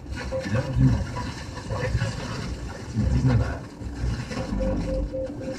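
Car radio tuned to a distant FM station: broken French speech from the broadcast, mixed with hiss and static as the weak signal fades in and out.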